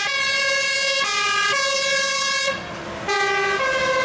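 Two-tone siren of a Mercedes-Benz fire engine on an emergency call. It alternates between a short lower tone and a longer higher tone, and breaks off briefly about two and a half seconds in before starting again.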